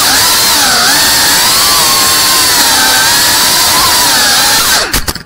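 3.5-inch cinewhoop FPV drone's motors and propellers whining, the pitch wavering up and down with the throttle. The sound cuts off suddenly near the end.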